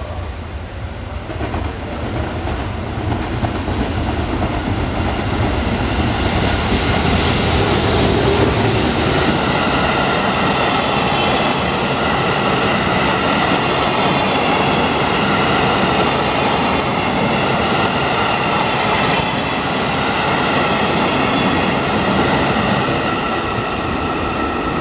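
A train running through the station, growing louder over the first several seconds and then holding steady, with wheels clattering on the rails and a steady high ringing.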